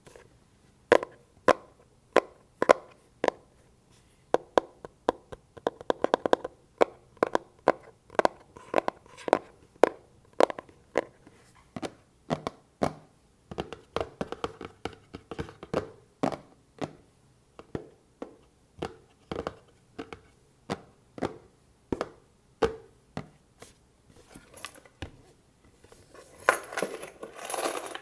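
Fingers tapping on a box as an ASMR trigger: sharp separate taps, about one to two a second, some in quick pairs. Near the end the taps give way to a denser stretch of scratching and rustling.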